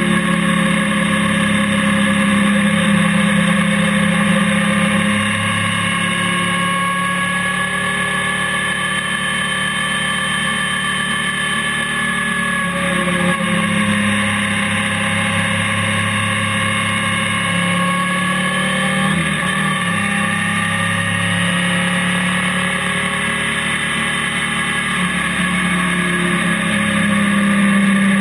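Honda NC700X parallel-twin motorcycle engine running at a steady cruise, heard from a camera mounted on the bike. Its pitch drifts slowly up and down with the throttle, dipping a little in level a few seconds in and rising again near the end.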